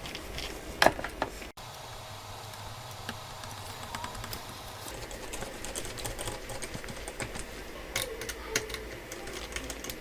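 Scattered light clicks and taps over a steady low hum, with the sharpest click about a second in and a few more near the end.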